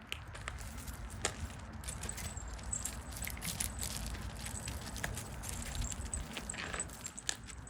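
Scattered small crackles and snaps of dry sticks and leaves as young puppies scramble and gnaw, over a steady low rumble.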